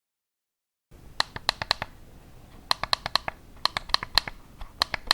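Razer DeathAdder V2 gaming mouse clicking in quick runs of about five clicks each, four runs with short pauses between them.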